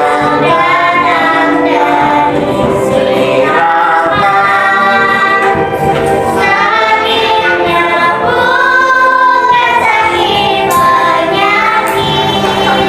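Music: a choir singing a song, with long held notes.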